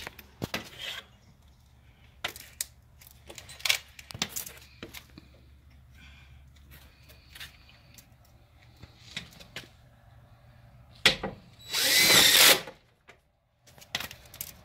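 A DeWalt cordless drill-driver runs in one short burst of about a second near the end, driving a screw into the screen door's bottom sweep. Before it, scattered clicks and knocks of handling the screws and tool against the aluminium door.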